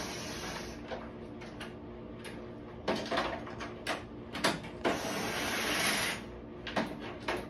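Ratchet wrench working the 7/16-inch bolts that hold a golf cart's canopy top. There are a few sharp clicks and knocks, then a longer stretch of rapid ratcheting about five seconds in.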